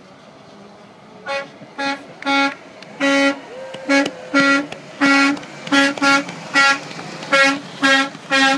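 Semi truck's horn honked in a rapid, uneven string of about a dozen short toots, beginning about a second in, each at the same steady pitch.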